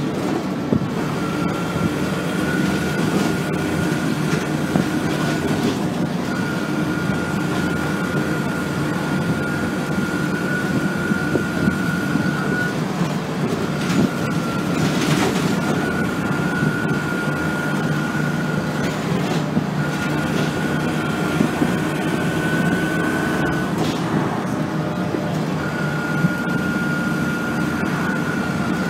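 ADL Trident double-decker bus heard from inside the upper deck while under way: its engine runs steadily with a high whine that cuts in and out. Occasional knocks and rattles come from the body, with one sharp knock about halfway through.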